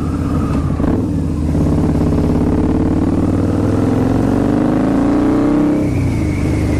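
Harley-Davidson V-Rod's V-twin running through unbaffled TAB Performance slip-on mufflers, very loud while ridden. The engine note climbs steadily for several seconds under acceleration, then drops sharply near the end as the throttle is closed.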